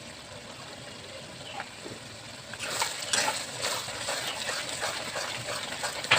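Onions and spice paste frying in oil in a pan with a faint steady sizzle, then, from about two and a half seconds in, a spatula stirring and scraping in the pan with irregular clatters.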